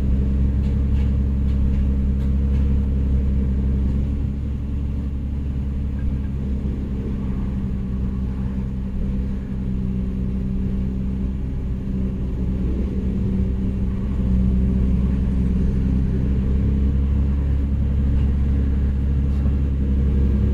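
2007 Nissan Murano's 3.5-litre V6 idling steadily, a constant low hum.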